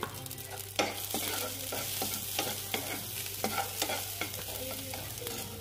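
Sliced onions sizzling in ghee in a frying pan, with a metal spoon scraping and clinking against the pan as they are stirred; a run of quick clicks between about one and four seconds in, over a steady sizzle.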